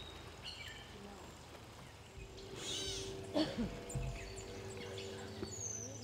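Backyard songbirds calling and chirping, with one louder, longer call about two and a half seconds in. A low steady hum sets in about halfway through.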